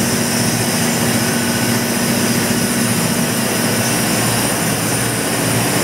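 Gas compressor machinery running: a loud, steady mechanical hum under a constant hiss.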